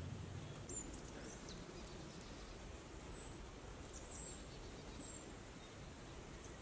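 Quiet woodland ambience: a faint steady background hiss with several short, very high-pitched bird calls scattered through it.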